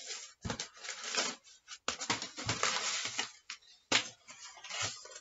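Packing paper rustling and crinkling as hands dig through it in a cardboard box, coming and going in irregular crackly stretches with sharp crackles.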